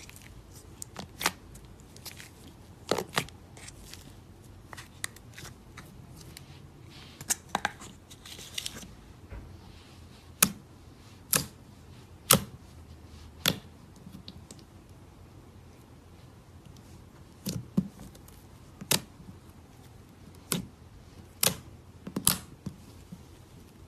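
Slime being worked, giving sharp crisp pops and clicks at irregular intervals, often about a second apart, with a lull in the middle.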